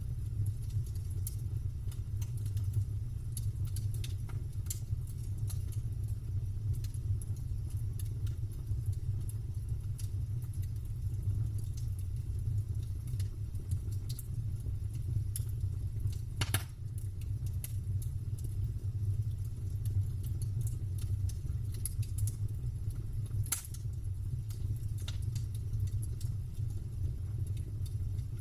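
Campfire burning: scattered sharp crackles and pops of wood over a steady low rumble, with two louder pops, one a little past halfway and another about four-fifths in.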